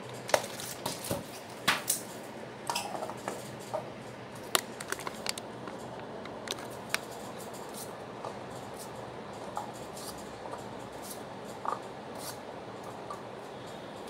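Light, irregular taps and clicks of paper coffee cups and paper being handled and set down on a table as the cups are stacked, thickest in the first five seconds and sparser after, over a steady hiss.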